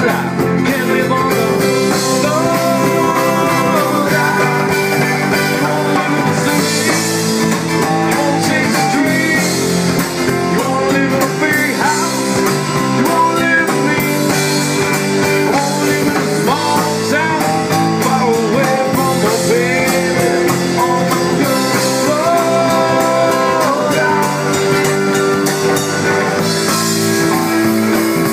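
Live band playing loud and steady, with electric bass, electric guitar and drum kit.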